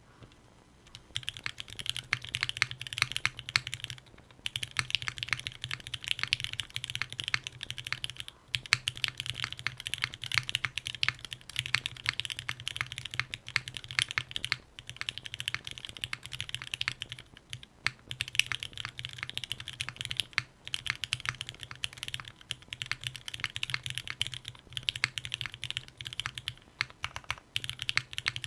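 Fast continuous typing on a Palmetto 60% custom mechanical keyboard with lubed and filmed Gateron Black Ink v2 linear switches and GMK keycaps, on a carbon fiber plate in an O-ring mount. The keystrokes start about a second in and run in rapid streams with short breaks every few seconds.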